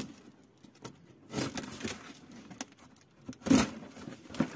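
Rabbit cage parts and their packaging being handled: irregular rustling and scraping with a few short knocks, the loudest about three and a half seconds in.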